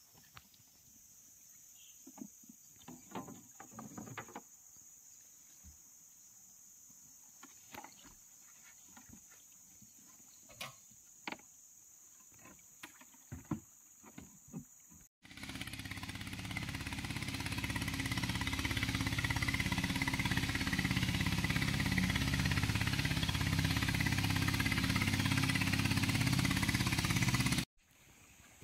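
Scattered light knocks and clicks of a wooden boat as it is held against an overhanging branch. After a cut about halfway through, a boat engine runs steadily, growing louder, and cuts off suddenly near the end.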